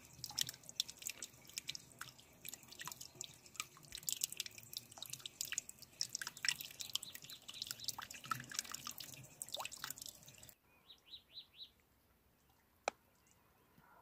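A thin stream of water trickling into a clay pot already full of water, with irregular plinks and splashes. It cuts off after about ten and a half seconds, followed by a short run of faint high bird chirps and a single click.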